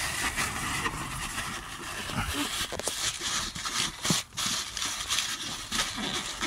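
Plastic bag crinkling and paper towel rubbing under gloved hands as spilled diesel is wiped up, with irregular rustles and a few small clicks and knocks.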